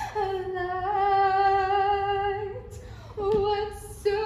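A girl singing unaccompanied: one long held note, a slight step up in pitch, a brief break about three seconds in, then another held note.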